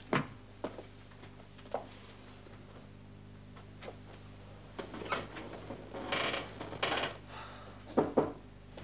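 Small clicks and knocks from a briefcase and desk items being handled, with two short rustling sounds about six and seven seconds in, over a steady low hum.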